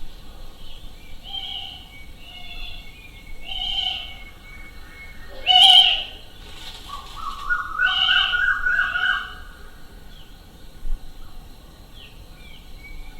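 Birds calling in a forest: a string of short separate calls, one louder call about halfway through, then a quick run of rising stepped notes.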